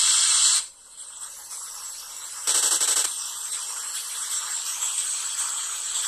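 Harsh static hiss of an emergency-alarm recording, loud for the first half second, then cutting off sharply to a quieter hiss. About two and a half seconds in, a half-second burst of rapid rattling crackle.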